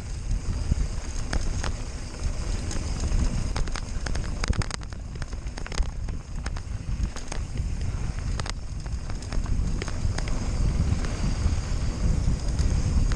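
Mountain bike riding over a rocky dirt trail: tyres crunching on dirt and gravel and the bike rattling, with many sharp clicks and knocks over a steady low rumble of wind on the microphone.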